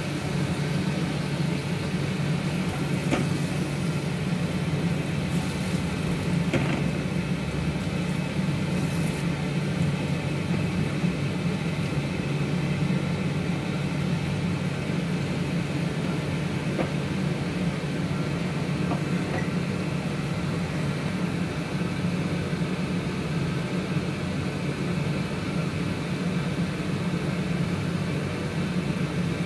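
Steady low hum with a faint sizzle of chicken frying in a wok, and a few light taps of a spatula against the wok early on.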